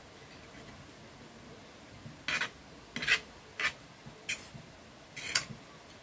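Two metal forks scraping and clicking against a plate as a pile of noodles is mixed, in about five short strokes starting about two seconds in.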